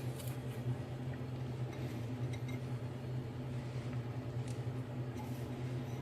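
A steady low mechanical hum, with a few faint light ticks over it.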